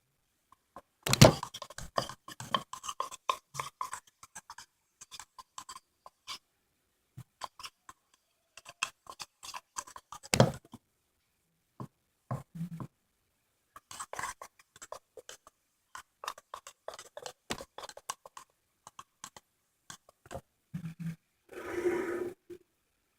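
Crunchy bead-and-puff-ball slime being squished and pressed by hand: scattered clicks and crackles, with a longer squelching air-pocket sound near the end.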